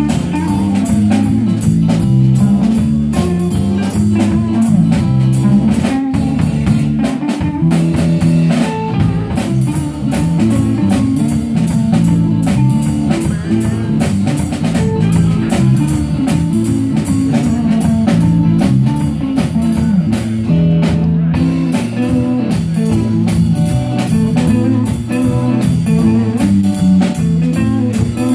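A live band playing electric guitars, electric bass and a drum kit at a steady beat, with no breaks.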